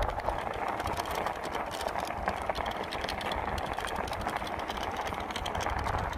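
Himiway Cruiser fat-tyre e-bike being ridden, giving a steady, rapid clicking rattle throughout.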